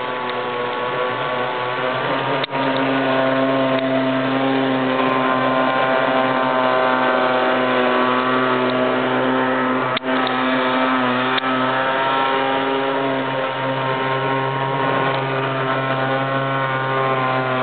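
Trimline 25cc two-stroke string-trimmer engine driving an RC boat, running at high speed with a steady, high-pitched buzz and a couple of very brief dips.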